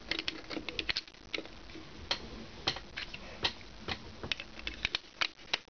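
Lego bricks clicking as a black Lego plate is handled and pressed back on as the lid of a small Lego gumball machine: a string of small, irregular plastic clicks.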